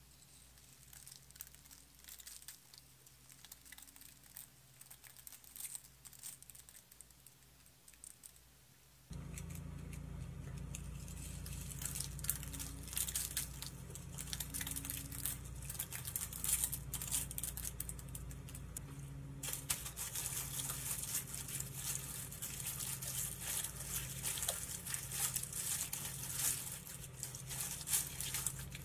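Hands working homemade borax slime: faint sticky pops and clicks at first, then, from about nine seconds in, louder, dense crackling and crinkling as plastic heart confetti and glitter are sprinkled onto the slime and pressed into it.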